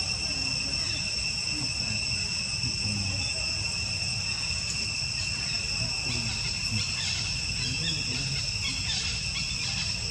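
Steady insect chorus: a constant high shrill held on a few fixed pitches, over a low rumble of background noise.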